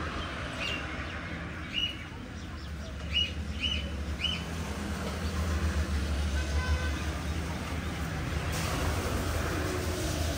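Road traffic rumbling, swelling about halfway through, with short bird chirps repeating over it in the first few seconds.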